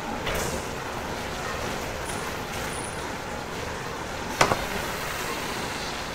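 Steady noise of a chicken processing plant's work floor, an even mechanical din of machinery and ventilation, with one sharp knock a little over four seconds in.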